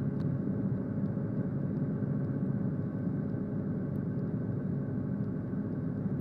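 Guimbal Cabri G2 helicopter's four-cylinder Lycoming piston engine and rotor running steadily at low rotor RPM, below 2,000 and not yet rolled up to flight RPM, heard from inside the cabin as a steady low drone.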